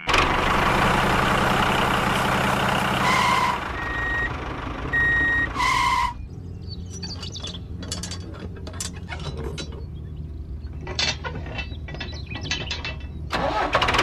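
Tractor engine running steadily, with a few short beeps a few seconds in; it then drops away to a quieter stretch of small sharp clicks as a spring is fitted by hand to a toy tractor's seed-drill hitch, and the engine sound returns near the end.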